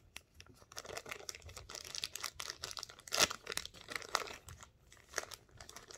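Clear plastic packaging bag crinkling and rustling in a run of irregular crackles as it is pulled open by hand, with the loudest crackle about three seconds in.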